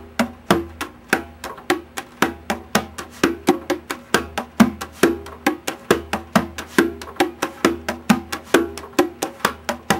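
A pair of congas played by hand in a steady, fast groove built on heel-finger strokes moving between the two drums, about five strokes a second, with the drums' pitched tones ringing under the strokes.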